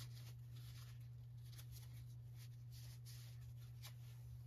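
Faint light clicks and rustling as a small-engine carburetor and a paper towel are handled, over a steady low hum.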